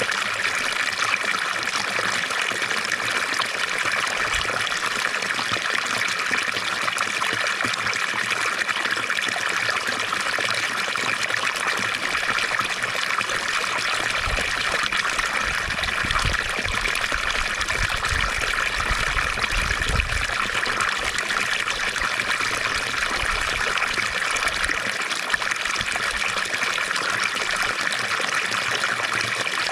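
Water from a fountain trickling and splashing steadily, in an even hiss without pauses. A low rumble comes and goes around the middle.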